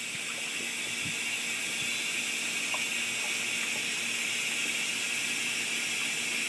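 Shower running: a steady hiss of water spraying, with a few faint knocks.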